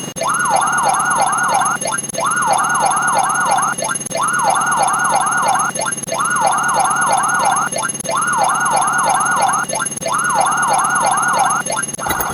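Police siren sound effect, looped: six bursts of about four quick falling wails each, one burst every two seconds or so, over a fast steady ticking.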